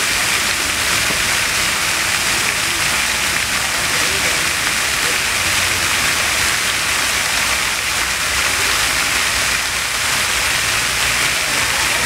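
Steady rushing hiss, like falling water, with faint voices murmuring underneath.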